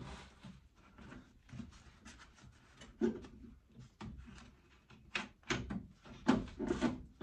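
Scattered plastic clicks, taps and knocks as gloved hands work at a VW T3's round headlight and its plastic grille surround, with a few sharper knocks about three seconds in and near the end.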